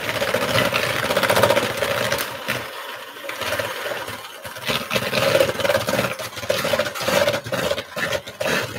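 Electric kitchen mixer running as it beats gingerbread dough ingredients (brown sugar, molasses and spices). The steady motor tone wavers in loudness.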